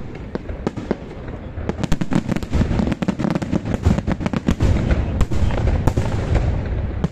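Aerial fireworks display: shells bursting in quick succession with rapid crackling over a continuous low rumble, the bursts thickest from about two seconds in.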